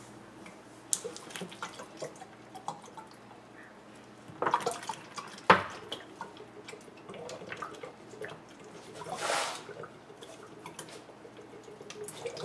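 Water draining in a swirling vortex from one plastic two-liter soda bottle into another through their taped-together necks: scattered gurgles and drips. A sharp click comes about five and a half seconds in, and a brief louder gurgle near nine seconds.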